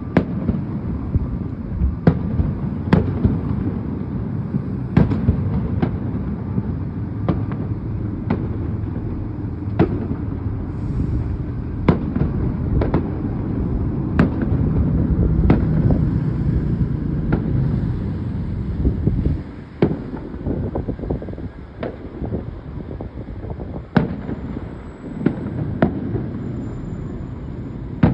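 Fireworks display: a run of sharp booms and bangs at irregular spacing over a continuous low rumble of echoing bursts, easing a little about two-thirds of the way through before building again.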